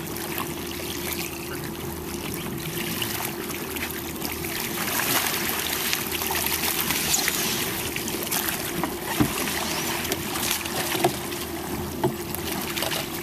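Water splashing and sloshing around a Spray underwater glider as it is hauled in by its tail rope and dragged up onto a boat's recovery ramp, over a steady hum. A few sharp knocks come in the second half.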